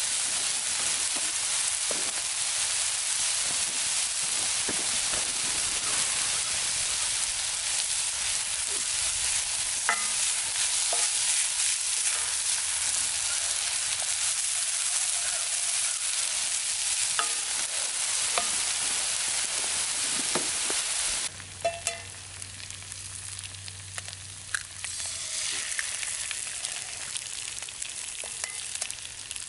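Sausage, onion, green pepper and hash browns sizzling in a cast-iron skillet, with a wooden spatula scraping and clicking in the pan as they are stirred. About two-thirds of the way through the sizzle drops suddenly to a much quieter level.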